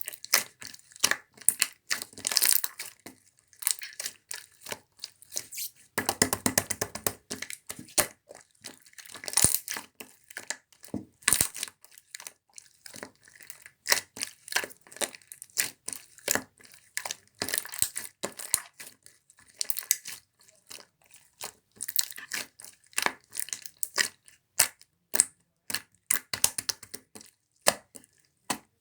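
Clear slime being squished, poked and stretched by hand, giving an irregular run of sticky clicks and pops, with a denser crackling stretch about six seconds in.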